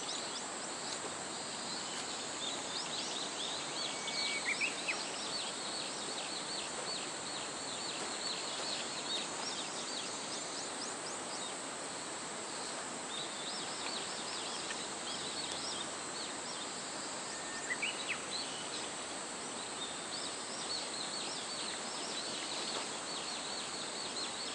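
Steady rush of flowing river water with small birds chirping over it throughout; a short falling call stands out twice, about four seconds in and again near eighteen seconds.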